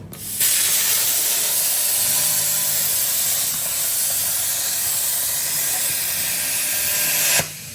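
Plasma cutter cutting steel plate: a loud, steady hiss that starts about half a second in and cuts off suddenly near the end.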